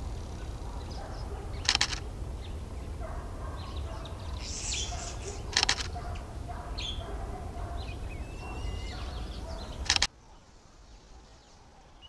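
A bird's loud, harsh call, three times about four seconds apart, over faint chirping of small birds.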